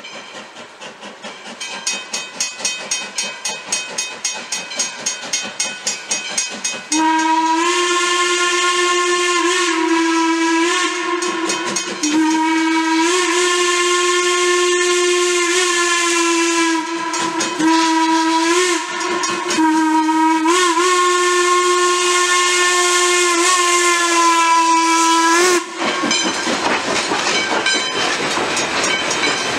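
Wilmington & Western No. 58, a 1907 Baldwin 0-6-0 steam locomotive, approaching with its exhaust beating about three times a second. After about seven seconds its steam whistle sounds in a series of long blasts with a short one before the last long one, the pattern blown for a road grade crossing, for about twenty seconds in all. Near the end the whistle stops and the passenger cars roll past with wheel clatter.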